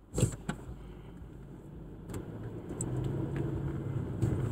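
Car engine and road noise heard inside the cabin, a steady low hum that grows louder about three seconds in. Two sharp knocks come near the start.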